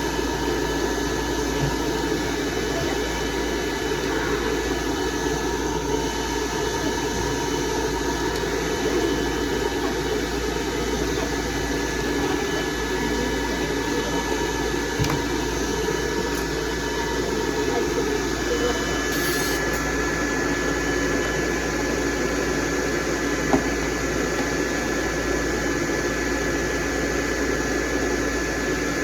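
Dryer blowing steadily, a continuous rushing air noise with a faint steady whine over it. Its sound shifts slightly about two-thirds of the way in, and there is a small click near the end.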